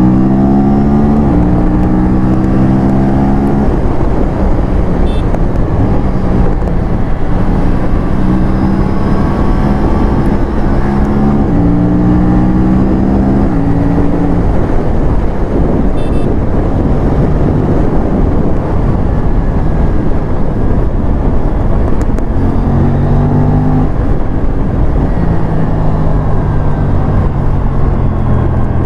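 Aprilia sport bike's parallel-twin engine under hard acceleration, its revs climbing and dropping sharply at each upshift, several times over. Heavy wind rush on the microphone at speed, which for a while drowns out the engine note.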